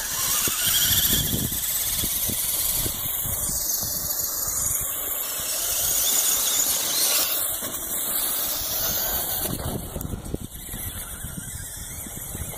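Tamiya Clodbuster RC monster truck driving over dirt, its electric motors and gearboxes giving a steady high-pitched whine, with uneven low rumbling from the tyres and chassis on the rough ground.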